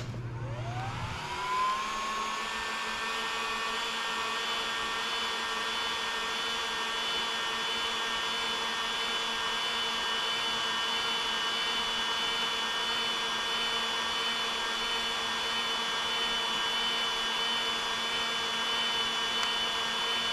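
Heat gun switched on: its fan motor spins up with a rising whine over the first two seconds, then runs steadily with a whine over a rush of hot air, shrinking heat-shrink tubing over a crimped wire terminal.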